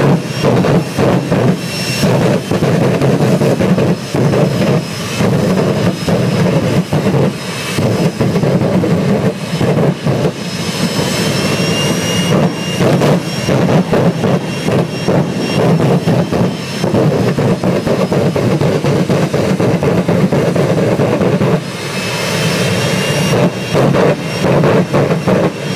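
Jet dragster's turbine engine running with the afterburner lit, firing rapid, choppy pops and bursts of flame over a continuous roar. A high turbine whine climbs twice, about ten seconds in and again near the end.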